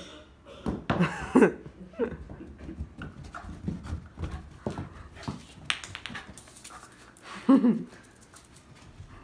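Shiba Inu panting and giving two short pitched calls, about a second in and again near the end, with scattered soft thumps as it runs down carpeted stairs.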